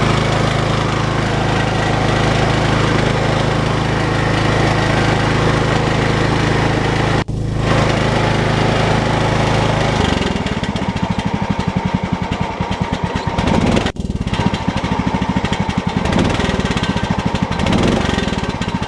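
Cub Cadet 1018 lawn tractor engine running steadily, just after starting on a newly replaced starter solenoid. About ten seconds in the note changes to a quicker, uneven pulsing. The sound cuts out briefly twice.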